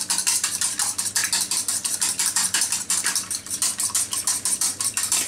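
A wire whisk beating a raw egg in a bowl, its wires ticking quickly and evenly against the bowl's side, many strokes a second.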